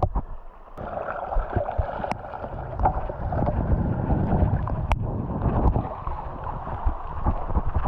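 Sea water sloshing and washing, with wind buffeting the microphone and a few sharp knocks.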